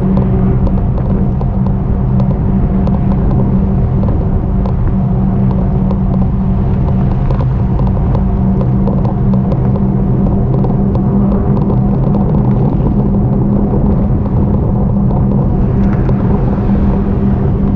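Riding noise of an e-bike: a steady low rumble of wind and road, with a constant low hum whose pitch does not change, and faint scattered ticks.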